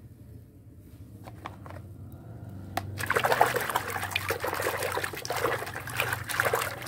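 Water sloshing and splashing as a muddy toy figure is swished and scrubbed by hand in a basin of soapy water. The splashing starts about three seconds in, after a few light clicks.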